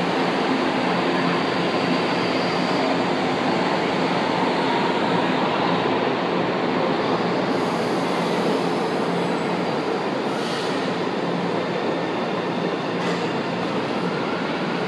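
São Paulo Metro trains moving through the underground station: a steady rumble and rush of wheels and motors, with faint steady whine tones. A couple of short hisses come in the second half.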